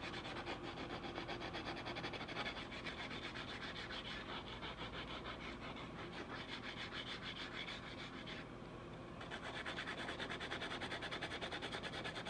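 Sandpaper rubbed by hand in quick back-and-forth strokes over the toe of a fiberglass-fused wooden hockey stick blade, smoothing down a super-glued crack. The strokes pause briefly about eight and a half seconds in.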